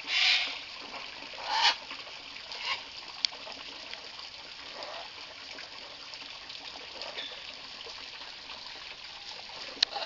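Water from a running hose trickling and splashing steadily into a birdbath where a blue-and-gold macaw is bathing, with two louder splashes in the first two seconds and two sharp clicks, one about three seconds in and one near the end.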